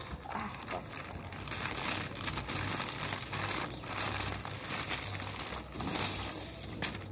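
Clear plastic packaging bag crinkling and crackling as it is pulled and worked off a toy robot by hand.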